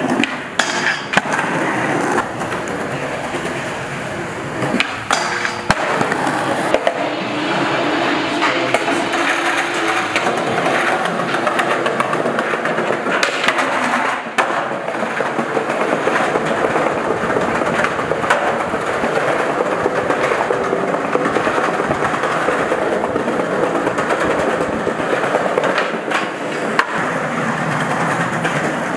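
Skateboards rolling on concrete, with repeated sharp clacks of tail pops and landings. Trucks scrape as they grind along a metal stair handrail and a concrete bench.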